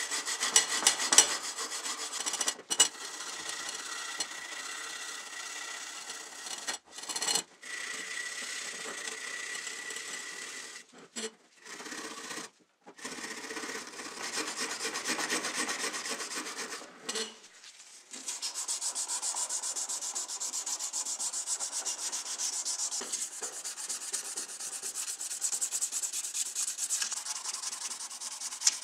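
Small wire brush scrubbing rust and flaking paint off a die-cast metal model car body in quick back-and-forth strokes, with several abrupt cuts. About two-thirds of the way in it changes to a steadier, hissier rubbing of a sanding pad on the bare metal.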